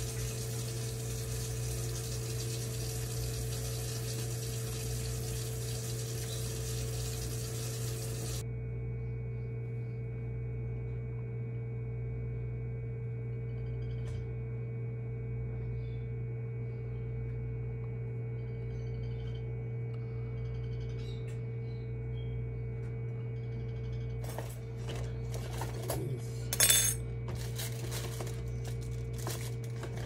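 Egg incubator's fan running with a steady low hum. A hiss over it cuts off suddenly about eight seconds in, and a few clicks and knocks come near the end.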